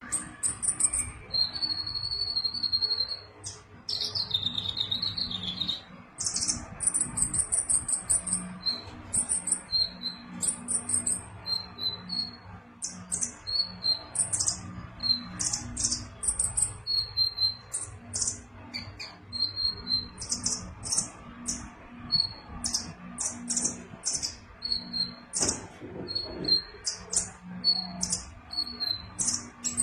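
Konin sunbird singing constantly: rapid high-pitched chirps and short trills in quick runs, with a few longer trills in the first six seconds. A faint low hum runs underneath.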